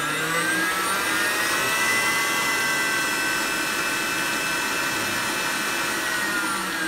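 Electric stand mixer running with its whisk turning in an empty steel bowl: a steady motor whine that rises in pitch as it speeds up in the first second or so, holds, then drops as it slows near the end.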